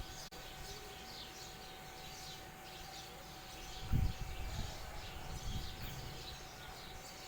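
Birds chirping, many short quick notes repeating, over a low rumble, with a louder low thump about four seconds in.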